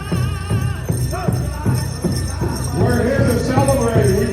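Powwow drum and singers: a steady beat of about three strokes a second on a large drum under group singing with a wavering vibrato, the voices swelling louder about three seconds in.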